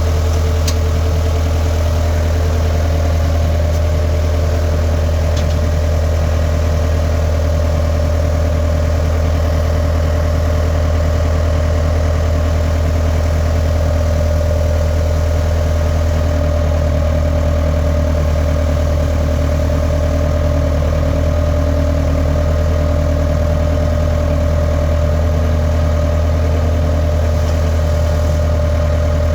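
Skid steer engine running steadily at an even speed, a loud deep hum with no revving.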